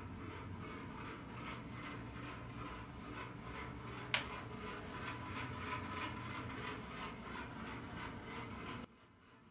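A single sharp click of a kitchen cabinet door about four seconds in, over a steady background hum that cuts off suddenly near the end.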